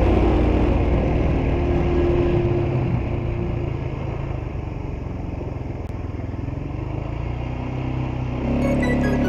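ATV engine running during an off-road ride, quieter through the middle and louder again near the end.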